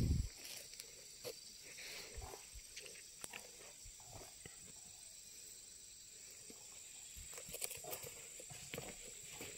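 Steady high-pitched insect drone from the plantation, with scattered faint ticks and crackles and one low thump right at the start.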